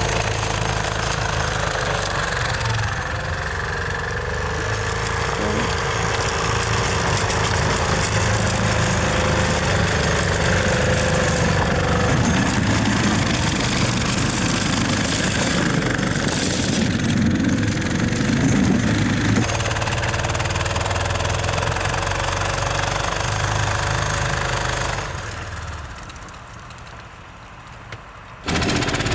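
Argo 6x6 amphibious ATV's small engine running under load as it drives through snow and mud, its pitch shifting with the throttle. Near the end the sound drops away to a much quieter stretch for a few seconds, then comes back suddenly.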